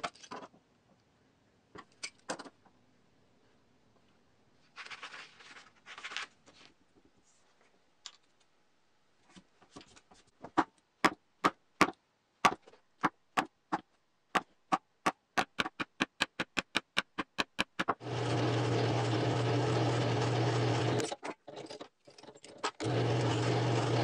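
A wooden mallet striking a chisel that is chopping into plywood: several dozen sharp taps that come faster and faster. Then a drill press motor starts and runs, drilling into the plywood, stops for about a second and a half, and starts again. A few brief knocks and rustles come before the tapping.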